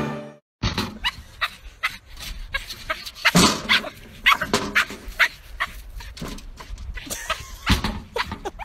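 Dog barking and yipping in short, irregular barks.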